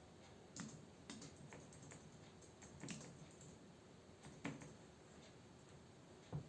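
Computer keyboard being typed on quietly: a few scattered, irregular keystrokes with pauses between them.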